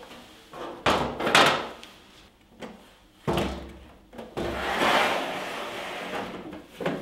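Welding machines slid along and set down on the steel shelves of a welding cart: a scrape about a second in, a knock followed by a longer scrape from about three to six seconds in, and a short bump near the end.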